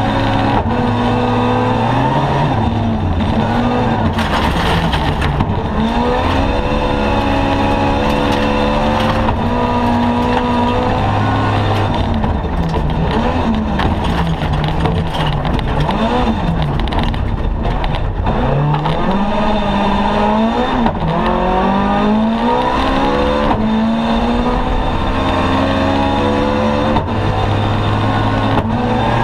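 Toyota AE86 rally car's engine heard from inside the cabin, revving hard and climbing in pitch, then dropping back at each gear change or lift, over and over. A constant rumble of gravel and road noise runs underneath.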